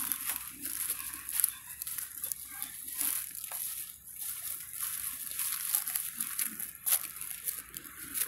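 Dry fallen leaves rustling and crackling as a macaque shifts in them and handles her newborn, in irregular small crinkles with one sharper crack about seven seconds in.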